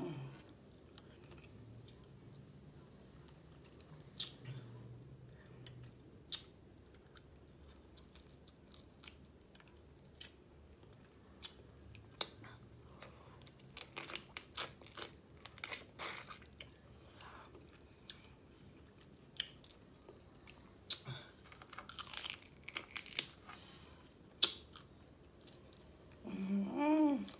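Close-miked eating of snow crab legs: chewing, wet mouth clicks and smacks, and scattered crunches as meat is pulled and sucked from the shells, busiest in the middle stretch. A brief hum near the end.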